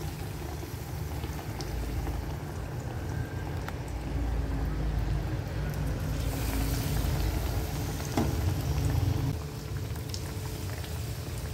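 Batter-coated brinjal slices sizzling and bubbling in hot oil as they deep-fry, over a low rumble, with a few light clicks.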